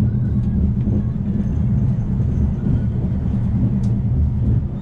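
Steady low rumble of the Afrosiyob high-speed train running at speed, heard from inside the passenger wagon, with a few faint ticks and rattles.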